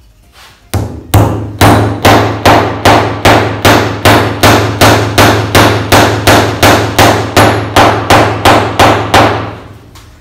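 Steel-headed hammer driving a wooden dowel into a drawbored hole through a breadboard end, in a steady run of sharp strikes about two and a half a second that stops near the end. The hole in the tenon is set slightly forward of the dowel hole, so each blow draws the breadboard end tighter to the tabletop.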